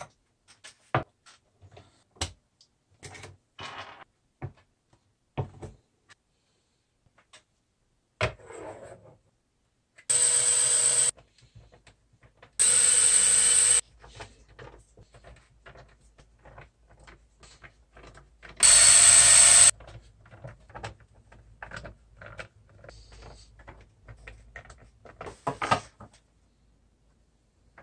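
Cordless drill running in three short bursts of about a second each, at a steady speed and pitch. Between them are light clicks and taps of skateboard parts being handled: wheels, trucks, bearings and screws.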